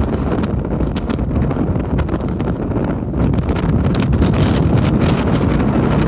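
Strong wind buffeting the microphone over the rumble of heavy storm surf breaking and foaming over rocks. The noise swells louder and hissier a little past halfway.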